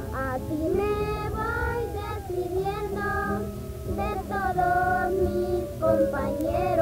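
Children singing a song together, the melody moving between long held notes.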